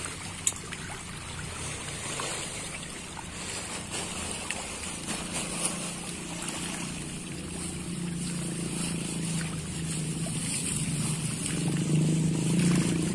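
Water splashing and churning as a dense school of patin (pangasius catfish) thrash at the pond surface in a feeding frenzy, with a few sharp splashes. Under it runs a steady engine hum that grows louder near the end.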